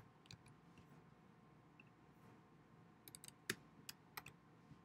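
Faint computer keyboard typing and clicking: a few scattered keystrokes, then a quick run of them about three to four seconds in.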